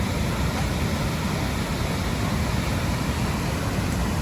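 Steady rush of water pouring over Grand Falls, an unbroken deep rumble with a hiss above it.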